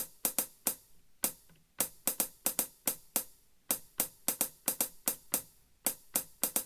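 Alesis SR-16 drum machine playing its "Wet Hat 2" hi-hat sample in a repeating pattern: short, bright hi-hat hits, several a second, with a few longer, more open-sounding strikes among them.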